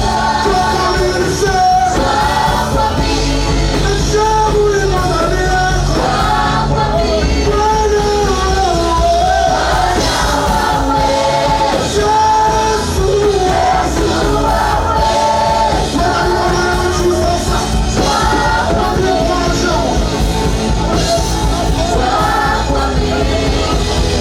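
Worship song: voices singing over a full band with steady bass.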